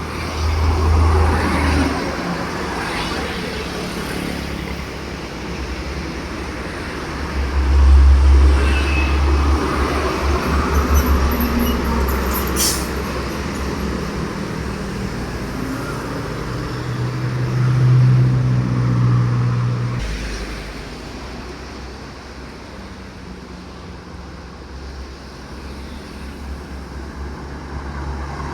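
Heavy trucks driving past on a road, engine rumble swelling loudest about a second in and again around eight to twelve seconds in, then falling away in the second half.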